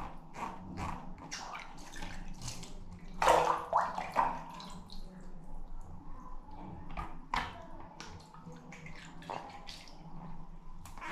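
Water splash and drip sound effects: a string of short splashes and drips, the loudest a cluster about three seconds in.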